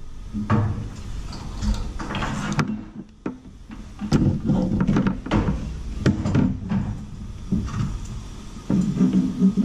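A 40-inch metal LED light bar being slid and fitted into the channel under a Rhino-Rack roof platform: scraping and sliding metal with a string of sharp knocks and clicks.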